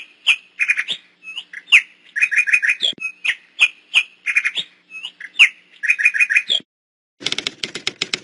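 Recorded songbird singing: a string of short chirps and quick trilled notes. The song stops about six and a half seconds in. Near the end a fast, dry clicking rattle starts.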